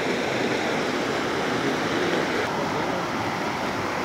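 Steady rushing of a shallow, fast-flowing stream tumbling over rocks.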